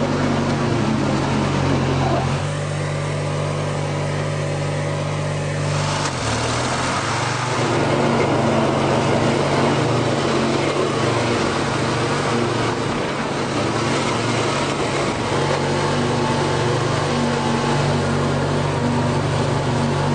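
Riding lawn tractor's engine running under load, its mower deck chopping through dense tall grass with a steady rushing noise. The engine note shifts around two seconds in and again about six seconds in as the thick grass loads it.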